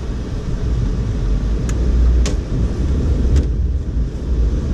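Car driving through snow, heard from inside the cabin: a steady low rumble of engine and tyres, with a few short clicks.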